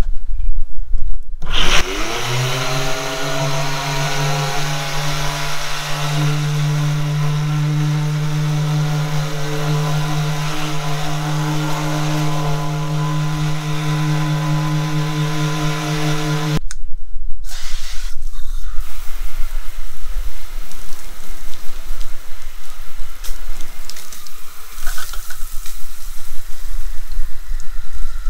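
Small electric random-orbit palm sander starting up, its motor spinning up to speed and running steadily as it sands gelcoat, then switching off about two-thirds of the way through. It is followed by the steady hiss of water spraying from a garden hose nozzle.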